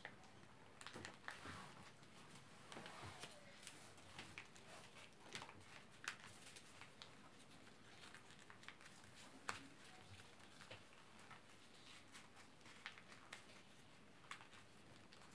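Faint, scattered rustling and crinkling of white paper being folded and creased by hand, with a few sharper ticks.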